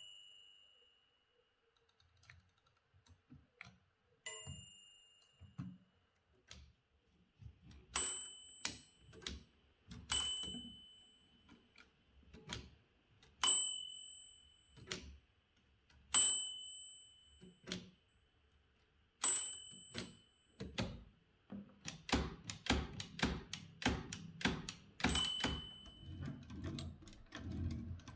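Manual typewriter's margin bell ringing seven times, each ding followed by clicks and clacks of the typewriter's mechanism. About two-thirds of the way in, rapid keystrokes start, with one more ding among them.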